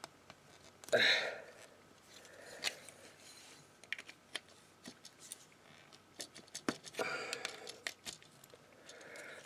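Small screwdriver's metal shaft clicking and scraping against the hard plastic joints of a transforming robot toy, in scattered light clicks, as a stiff joint is pried that will not rotate by hand. Two short muttered vocal sounds, the louder about a second in, the other around seven seconds.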